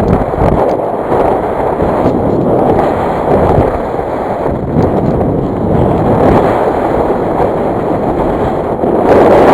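Wind buffeting the microphone: a loud, gusty rumble that swells and drops, louder again near the end.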